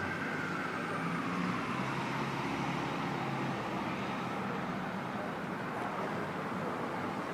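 Steady street traffic noise, with a siren's wail falling in pitch and fading away over the first two or three seconds.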